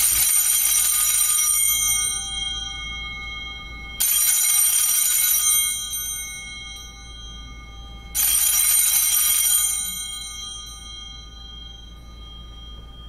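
Altar bells, a cluster of small hand bells, shaken in three separate rings about four seconds apart. Each is a bright jingle of a second or two whose high tones ring on and fade. They mark the elevation of the consecrated host at the consecration of the Mass.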